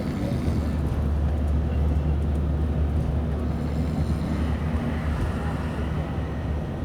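Steady low rumble of a moving vehicle, heard from inside.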